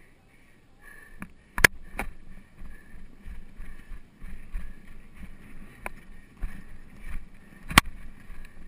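Polo pony cantering with the camera mounted on it: a steady rhythm of hoofbeats on turf, with four sharp loud knocks close to the microphone.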